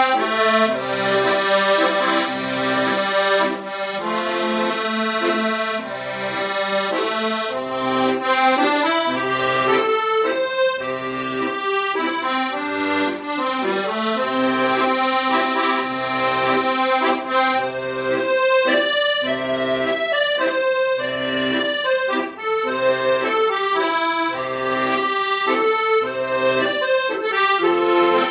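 Instrumental music, with no singing: a sustained melody over held chords and an even, regular bass pulse.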